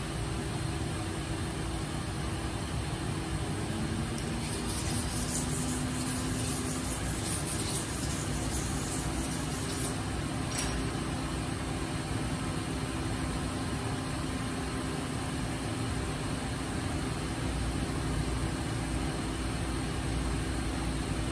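Steady machine-shop drone of running equipment with a low hum. One short metallic tap about ten and a half seconds in as steel blocks are set down on the EDM machine's table.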